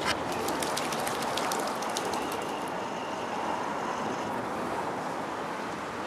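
Lakeside ambience: a steady rush of background noise, typical of distant city traffic. A quick run of sharp clicks comes over the first two seconds or so.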